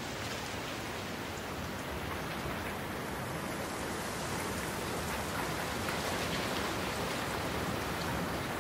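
Steady rain falling on wet asphalt, an even hiss with no distinct events, growing slightly louder toward the end.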